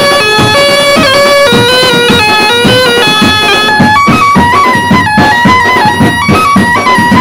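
Background music: a melody of held notes that step up and down in pitch, over a steady drum beat.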